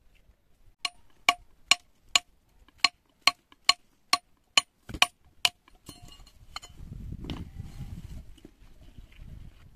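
About a dozen sharp hammer blows, roughly two a second, each with a short ringing tone. They stop about five and a half seconds in, and a low rumbling noise follows.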